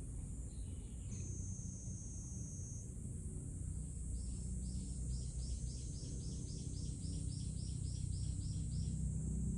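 Outdoor ambience with a steady high-pitched drone like insects. About four seconds in, a run of quick, evenly repeated chirps starts, three or four a second, and goes on for some five seconds.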